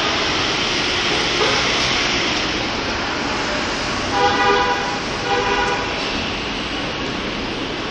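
Steady city street traffic noise, with two short horn toots about four seconds and five and a half seconds in.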